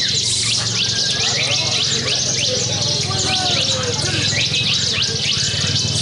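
Many caged ciblek (bar-winged prinias) singing at once in a songbird contest: a dense, unbroken stream of rapid, high, down-slurred chirps and trills. A steady low hum runs beneath.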